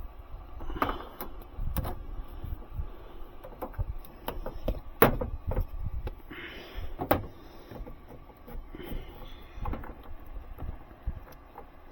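Irregular knocks, clicks and rustling as tools and wire are handled, with no steady machine sound.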